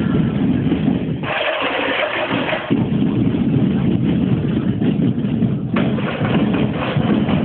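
Loud, muddy street-parade din: music and crowd noise blended together, with a rush of hiss lasting about a second and a half, starting just over a second in.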